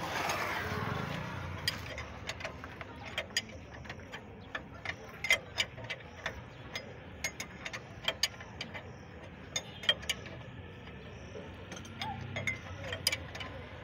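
Spanner working the steel nut of a leaf-spring U-bolt: a run of sharp, irregular metal clicks, at times several a second, as the nut is turned.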